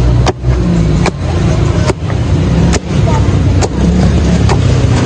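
Wooden pestles pounding food in a wooden mortar: about six regular thuds, a little under one a second, over a steady low rumble.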